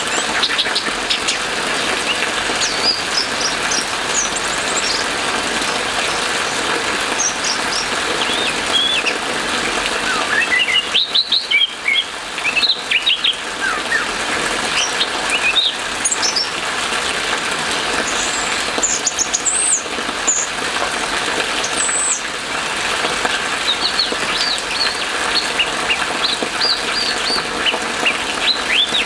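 Orange-headed thrush singing a long run of quick whistled and chirping notes that slide up and down, over a steady hiss of rain.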